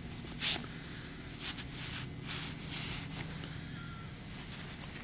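Cloth towel rubbing and wiping a wet axe head just lifted from a vinegar bath, with a few short scrubbing strokes, wiping off rust scale loosened by the soak. A sharp knock about half a second in.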